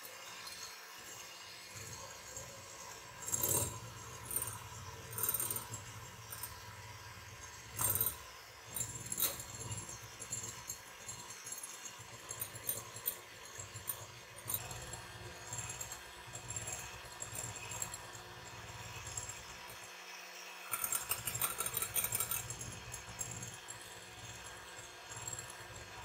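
KitchenAid electric hand mixer whipping egg whites into meringue in a glass bowl: the motor hums steadily while the beaters clink and rattle against the glass, louder now and then.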